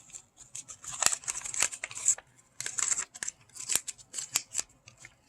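Paper instruction booklet and plastic packaging of a toy building set being handled: irregular short rustles and clicks.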